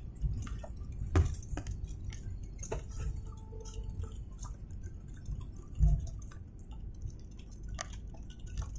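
Low rumble of an airliner rolling out on the runway after landing, spoilers raised, heard from inside the cabin. Scattered light clicks and rattles run through it, and a single low thump comes about six seconds in.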